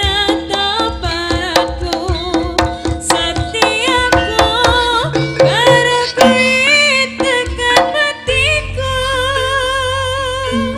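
Live Javanese jaranan-style troupe music: quick hand-drum strokes under a wavering, ornamented melody line. About eight seconds in, the drumming thins out and the melody holds long wavering notes over a steady low drone.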